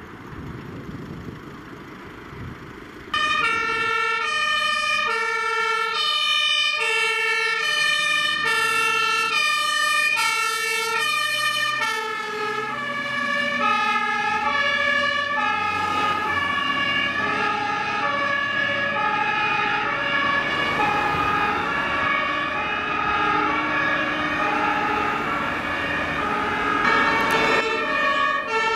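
Street noise, then about three seconds in the two-tone German Martinshorn siren of a fire engine starts up close, alternating between two pitches. From about twelve seconds in a second two-tone horn at a different pitch overlaps it as more fire engines pass, and near the end another horn comes in.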